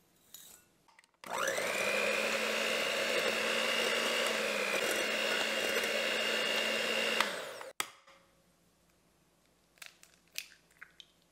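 Electric hand mixer starting up about a second in and whirring steadily as its beaters mix coconut oil and brown sugar in a glass bowl, then winding down and stopping after about six seconds. A few faint light taps follow near the end.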